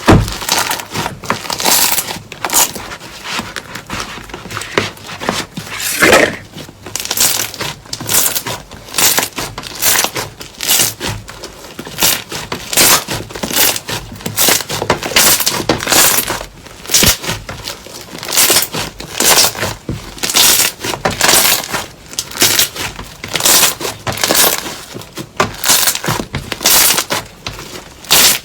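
Slime being squeezed and pressed by hand, giving a dense run of short crunchy crackles and pops, a burst or two every second.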